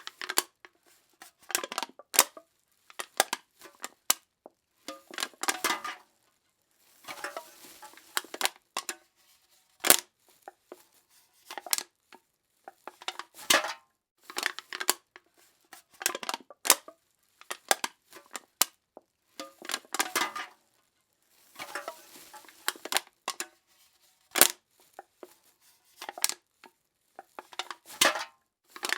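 Aluminum cans being crushed, one crunch after another every couple of seconds: sharp metallic crackles and pops, some drawn out into longer crinkling, with silence between.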